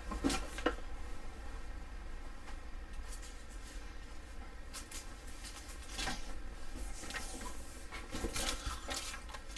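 Faint rustling and handling noises, with two light clicks near the start and a few short rustles later on.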